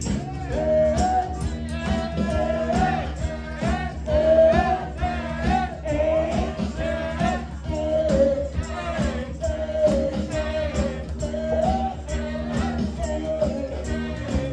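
Live rock band playing a cover song, a woman singing lead over electric guitar, keyboard and drums keeping a steady beat.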